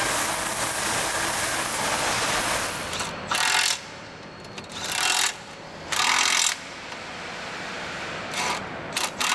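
A machine tool's cutter runs steadily, boring into a steel plate. From about three seconds in, a cordless impact wrench rattles in short bursts of about half a second, tightening bolts on a diesel engine: three bursts, then a few quicker ones near the end.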